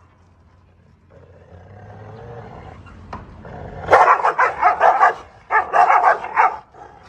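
Two dogs snarling at each other across a fence. A low growl starts about a second in, then a rapid volley of loud barks begins about four seconds in, breaks off briefly, resumes, and ends with one last bark.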